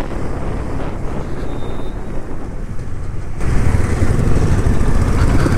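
Engine and road noise from a moving vehicle, a steady rumbling noise that grows louder about three and a half seconds in.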